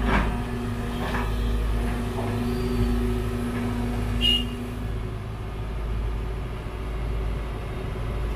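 Heavy diesel engines running steadily as a Sumitomo hydraulic excavator loads dredged river mud into a dump truck, with a steady hum that stops about five seconds in and a few brief knocks.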